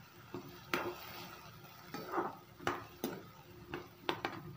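Steel spoon stirring and tossing chopped okra with curd in a kadhai, scraping the pan with several sharp clicks as the spoon knocks against it.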